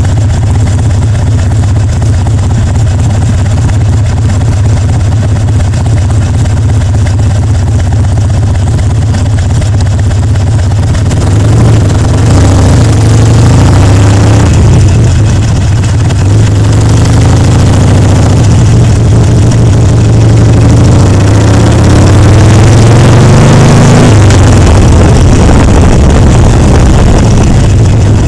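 Harley-Davidson Sportster Seventy-Two (XL1200V) 1200 cc V-twin idling at a stop, then pulling away about 11 seconds in, its pitch climbing as it accelerates through the gears and dropping at a shift about 24 seconds in. Wind rushes over the microphone once it is moving.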